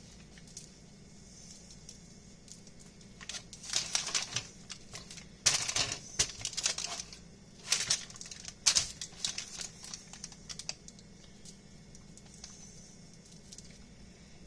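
Seasoning shaken from a shaker onto fish fillets on a sheet pan, in several short bursts about four, six, eight and nine seconds in.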